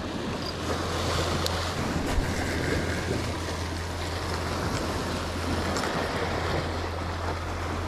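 Sea surf washing steadily against shoreline rocks.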